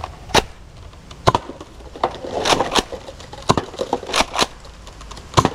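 A toy blaster being handled: a string of sharp plastic clicks and knocks at uneven intervals, with some rustling over a low steady hum.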